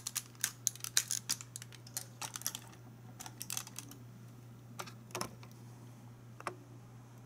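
Small hard clicks and taps from handling and posing a Hot Toys 1:6 scale Iron Man Mark 45 figure, its armor pieces and joints knocking and clicking into place on its stand. There is a quick run of clicks in the first few seconds, then a few scattered ones, over a low steady hum.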